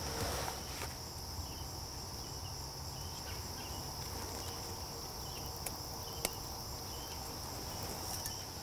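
Steady high-pitched chorus of insects, with a few faint short chirps scattered through it and one small click about six seconds in.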